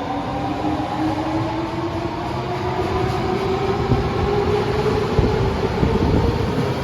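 Osaka Metro Tanimachi Line subway train accelerating, its traction inverter and motors whining in several tones that climb slowly in pitch. Wheel and rail rumble grows louder about four seconds in.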